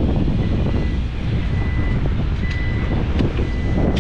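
SANY SY500 excavator's diesel engine running steadily with heavy machinery rumble, wind buffeting the microphone. A thin high tone comes and goes, and a few sharp knocks sound in the second half.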